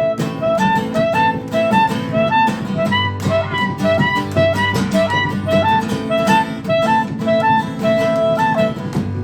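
Acoustic band playing an instrumental passage: a clarinet melody of separate held notes over guitars, bass and percussion.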